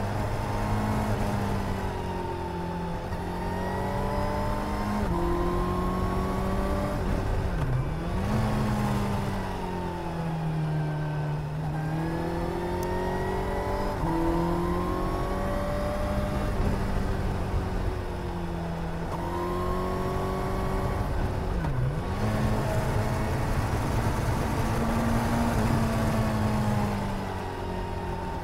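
Suzuki GSR 750's inline-four engine heard from the rider's seat while riding through bends: the revs fall off and climb again over and over as the throttle is rolled off and on. Twice, about a third of the way in and again about three quarters in, the revs dip sharply for a moment.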